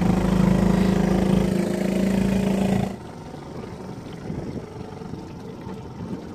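Small boat outboard motor running at a steady pitch, stopping abruptly about three seconds in. After that, quieter wind noise and water.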